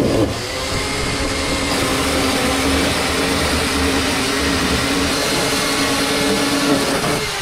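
Chainsaw running steadily at high revs as it cuts through old wooden hull planking, easing off near the end.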